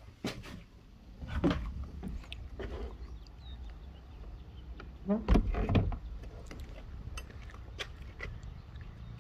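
Scattered knocks and clicks of someone stepping out of a wooden shed and working its door, with the loudest knocks about five seconds in, over a low rumble.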